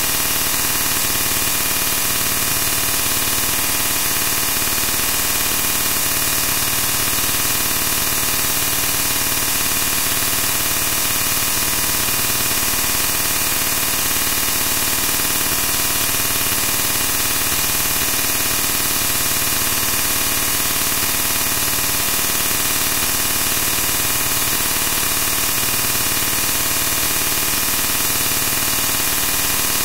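Loud, steady hiss like static or white noise, brightest in the high end, unchanging throughout.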